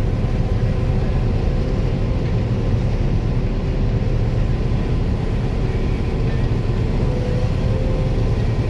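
Combine harvester running steadily while harvesting soybeans: a low, even drone with no change in speed.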